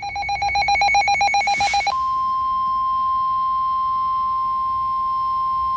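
Rapid electronic beeping for about two seconds, then a single steady high tone held without a break: the NOAA Weather Radio 1050 Hz warning alarm tone that comes before a severe thunderstorm warning.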